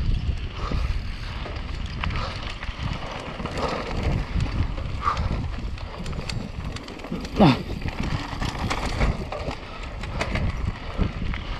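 Mountain bike descending a dirt trail at speed: wind buffeting the microphone, tyre noise on the dirt, and the bike rattling with many small knocks. About halfway through there is a short tone falling sharply in pitch.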